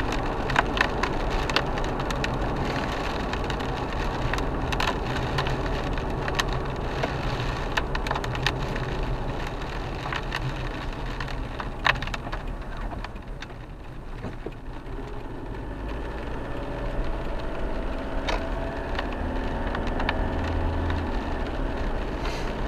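Inside the cabin of an Isuzu MU-X driving in rain: steady engine and wet-road tyre noise, with many scattered sharp ticks of raindrops hitting the windscreen. The noise dips briefly about midway, then builds again with a low engine note near the end.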